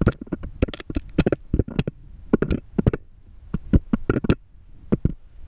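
Homemade GoPro housing knocking and scraping against the rock walls of a deep borehole as it is lowered, an irregular clatter of sharp knocks several times a second.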